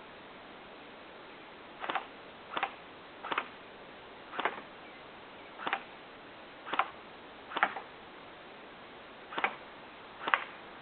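Double Eagle AK47 airsoft electric gun (AEG) firing nine single shots, one at a time, with irregular gaps of about a second between them.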